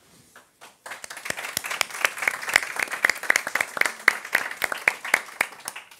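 Audience applauding, many hands clapping; it starts about a second in and dies away near the end.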